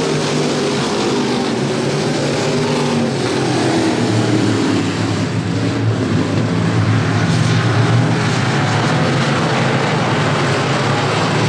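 Several dirt-track race car engines running at speed around the oval, a steady loud engine drone that grows a little louder past the middle as the pack comes by.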